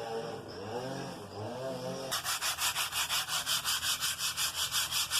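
Rubbing down a scratched oak floor by hand with an abrasive: quick back-and-forth scratchy strokes, about four a second, starting about two seconds in.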